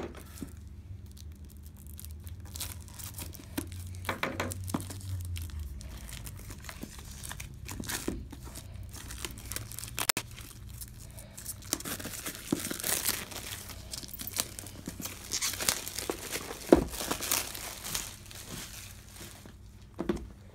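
Board game packaging being torn open and crinkled: irregular crackling and rustling of wrapping and the box as it is opened, busiest in the second half.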